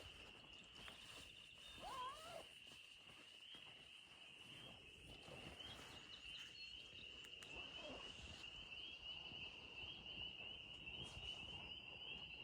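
Faint outdoor ambience: a steady high-pitched insect buzz with a fast, even pulse. A couple of faint brief calls rise and fall about two and eight seconds in.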